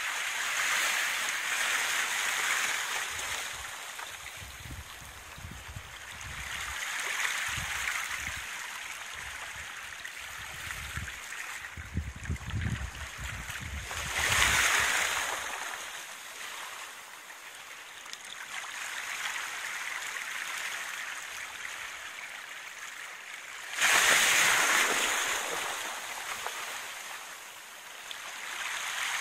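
Small sea waves lapping at the shore: a steady wash of water that swells and fades every few seconds, with a sudden louder surge late on.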